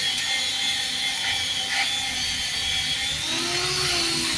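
A machine running steadily, a continuous mechanical whirr with a high whine that wavers slightly near the end.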